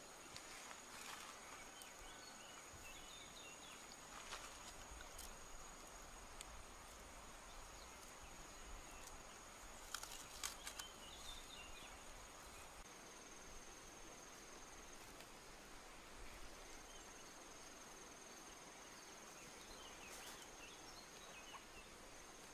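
Near-quiet outdoor ambience: a steady, high-pitched insect buzz, with a short cluster of sharp clicks about ten seconds in.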